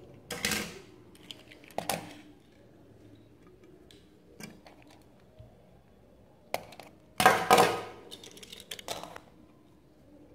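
Handling noise from small toy cars being picked up and set down by hand: scattered clicks and knocks with short bursts of rustling and scraping. The loudest burst comes about seven seconds in.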